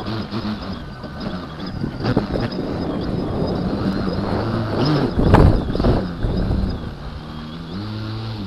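Extra 300LX model aircraft's motor idling steadily with its propeller turning, over wind noise on the microphone, with a gust about five seconds in. The pitch steps up slightly near the end. The pilot says the throttle curve is set a bit wrong.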